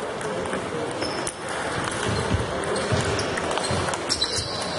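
Table tennis rally: the ball clicking sharply off the bats and the table again and again, over the steady background noise of a large sports hall.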